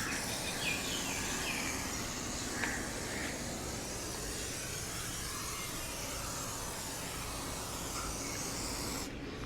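Aerosol can of silicone spray hissing steadily as it is sprayed onto the car's rubber door seals. It stops abruptly about nine seconds in.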